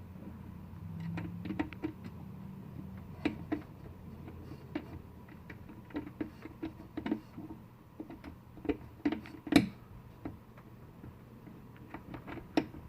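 Irregular small metal clicks and knocks of window-regulator parts being handled and fitted into a car door, with one louder knock about two-thirds of the way through, over a faint low hum.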